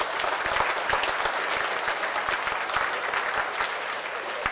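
Audience applauding: steady, dense clapping that eases slightly near the end.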